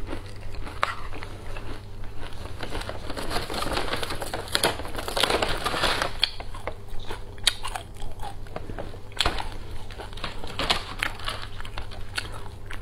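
Close-up crunching and chewing of dry baked oat granola, full of sharp crackly clicks. In the second half a plastic cereal bag crinkles as it is handled.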